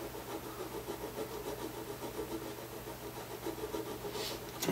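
Gauged nut file rubbing back and forth in a guitar nut's E-string slot in short, soft strokes, recutting a slot that was filled with superglue and nut dust because it had been cut too low and the string buzzed.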